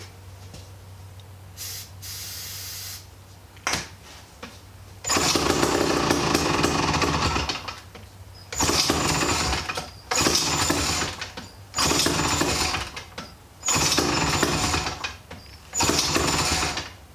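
Sears/David Bradley U4D two-stroke chainsaw primed by hand: a short hiss, then the engine fires and runs for a couple of seconds before dying, followed by five shorter bursts of firing about every second and a half. It runs only on the fuel sprayed into the carburetor, a sign of good compression and ignition with the fuel system still to be sorted.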